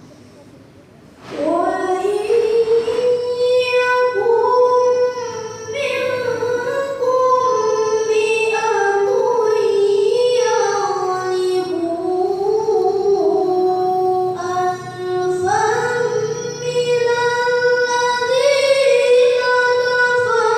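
A child's voice reciting the Quran in the melodic tilawah style. It starts about a second in and holds long, high notes with wavering, ornamented turns, pausing briefly for breath twice.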